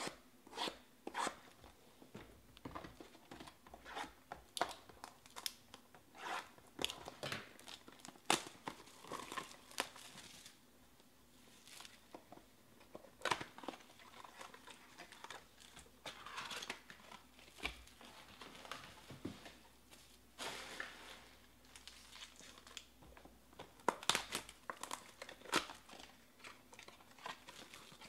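Cardboard trading-card boxes being torn open by hand and their foil-wrapped packs pulled out: irregular crinkling, tearing and rustling of cardboard and foil, with sharp snaps now and then.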